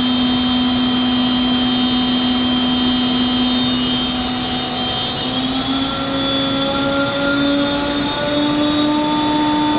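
DMG DMC 65V vertical machining center's spindle running free at high speed, about 15,000 rpm, with a steady whine. Its pitch steps up twice, about five and eight seconds in, as the spindle speed is overridden upward toward its 18,000 rpm maximum.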